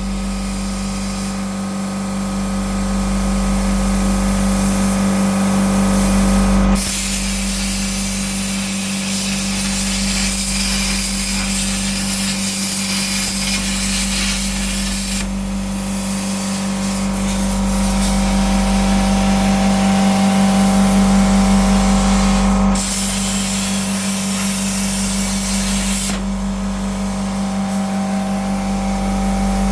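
RTECH P51D plasma cutter cutting 3 mm steel sheet at 40 amps on a CNC table: a steady hiss of arc and air over a constant hum. The hiss drops away and resumes abruptly a few times as the torch moves between cuts.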